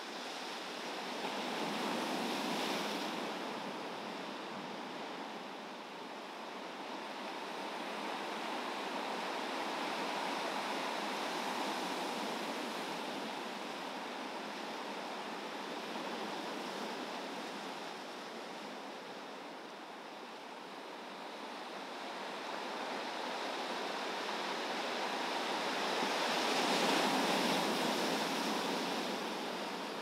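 Big ocean waves surging and breaking on a shore of volcanic rock and sand, with wind: a continuous rush of surf that swells and ebbs, loudest about two to three seconds in and again near the end.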